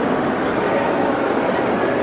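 Shopping-mall ambience: a steady, indistinct murmur of many voices in a large space, with a few faint light clinks.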